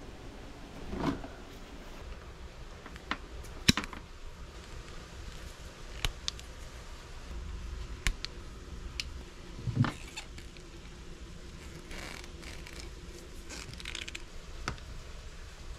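Wire strippers and crimping pliers at work on an electrical cord: scattered sharp clicks and snips, about a dozen, with handling noise between them, the loudest one a little under four seconds in.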